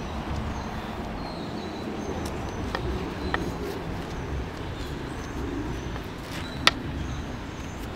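Outdoor background of a steady low traffic rumble with faint, scattered bird chirps, and one sharp click about two-thirds of the way through.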